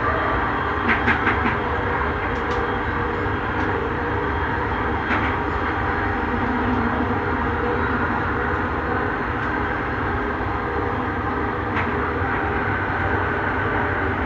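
Bombardier Innovia Metro 300 train running between stations, heard from inside the car as a steady rumble. A quick run of sharp clicks comes about a second in, and a few single clicks follow later.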